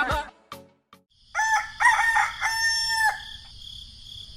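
A rooster crowing once, a cock-a-doodle-doo of several joined notes lasting about two seconds and starting just over a second in. A steady high hiss runs behind it and on after the crow.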